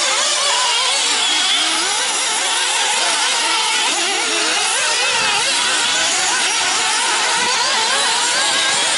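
Several nitro RC buggy engines running at high revs, their pitches rising and falling and overlapping as the cars accelerate and slow through the track.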